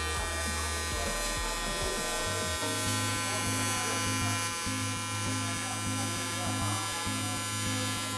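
Steady electric buzz of a TIG welding arc, with many overtones. Its low hum shifts up in pitch about two and a half seconds in.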